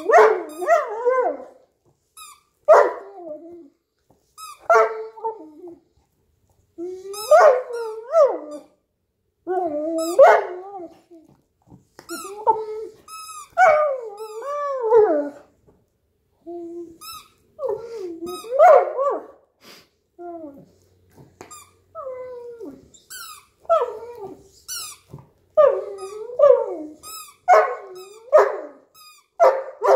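Rubber squeaky toy being chewed by a Newfoundland dog, squeaking in short runs of wavering squeaks that rise and fall in pitch, a burst roughly every two seconds.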